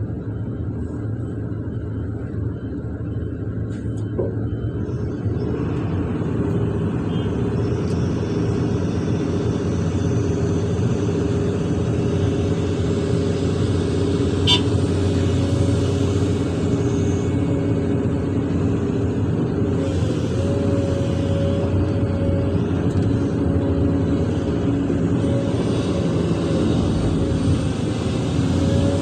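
Hydraulic excavator's diesel engine running under load, with the hydraulics working the arm and bucket. It grows louder and busier about five seconds in. A steady high whine joins at about twenty seconds, with a couple of brief clicks along the way.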